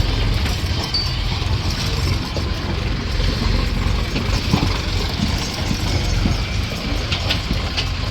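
Heavy diesel machinery running steadily with a low rumble, and a few sharp metallic clinks near the end.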